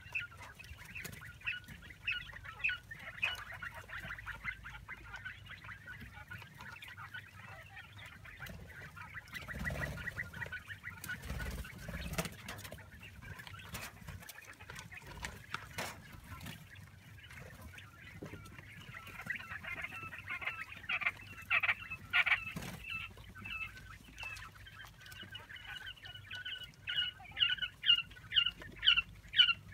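Month-old Japanese quail chicks (Texas white and golden phoenix) peeping: a stream of short, high calls that thickens in the second half and ends in a fast run of loud peeps, about three a second.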